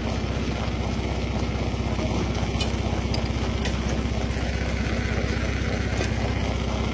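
Rock crusher machinery running steadily: a low engine-like drone with a fast, even pulse, with a few faint clicks on top.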